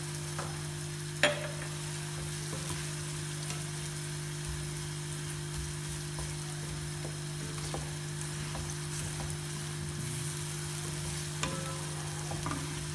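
Potatoes in a watery masala gravy sizzling and simmering in a pot, stirred with a wooden spoon, with a sharp knock about a second in. A steady low hum runs underneath.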